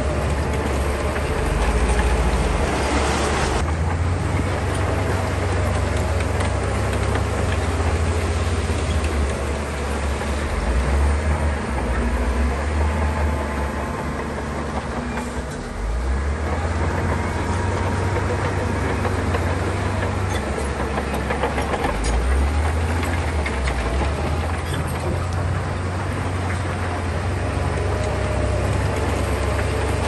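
Diesel heavy earthmoving machinery running under load, with a dense rattling clatter over the engine; the engine eases off briefly about halfway through, then picks up again.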